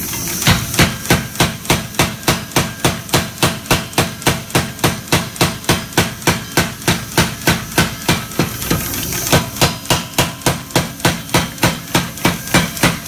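Big Blu 110 pneumatic power hammer striking a red-hot 1084 high-carbon steel bar between its dies in a steady run of about three blows a second, drawing out the width of a knife blade. The blows start about half a second in, over a steady hiss.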